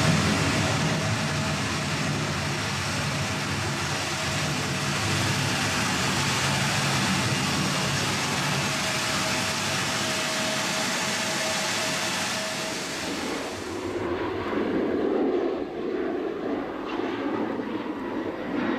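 Boeing 787-8 Dreamliner's jet engines, a loud steady roar as the airliner moves along the runway. After about fourteen seconds the sound changes to a lower, duller rumble with the hiss gone.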